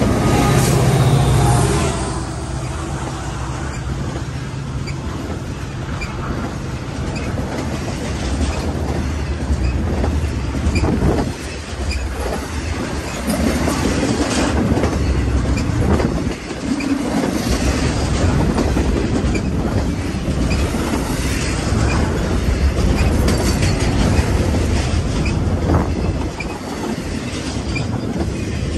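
Union Pacific double-stack intermodal train passing close by. A mid-train diesel locomotive goes past in the first couple of seconds, then the container well cars rumble and clatter on the rails, with intermittent knocks from the wheels.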